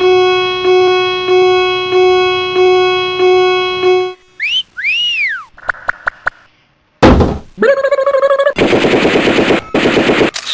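A run of stock editing sound effects: a bright pitched tone struck over and over, about seven times in four seconds, then a swooping whistle that rises and falls, a few quick clicks, and after a short pause a loud burst followed by a buzzing pulse and a rapid-fire crackle like machine-gun fire.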